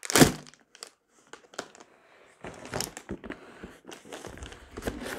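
Plastic MRE packaging crinkling and rustling as it is handled, with a loud handling noise right at the start and scattered crackles after it.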